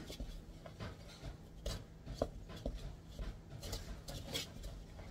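A spoon stirring powdered sugar into mashed potato in a mixing bowl: faint, irregular scraping strokes with a few light taps against the bowl.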